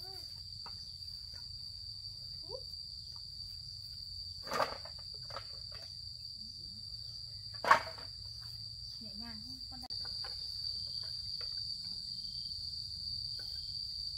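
Insects droning steadily in one high, even tone, with two sharp knocks, the second about three seconds after the first and the loudest sound.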